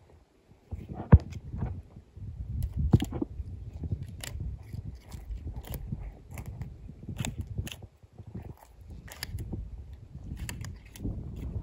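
Irregular crunching and crackling of footsteps through dry leaves and brush, with a sharp snap about a second in, over a low rumble from the microphone being carried.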